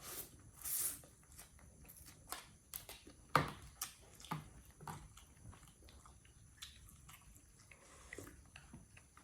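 A monkey eating: scattered chewing and biting clicks, with one sharper knock about three and a half seconds in.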